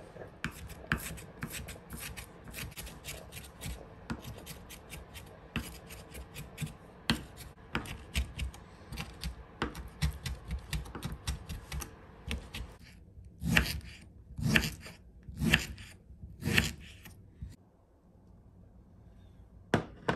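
Kitchen knife chopping quickly and irregularly on a cutting board, mincing green onion and zha cai (Sichuan pickled mustard stem). About two-thirds of the way through, four heavier, longer strokes come about a second apart, then the chopping stops.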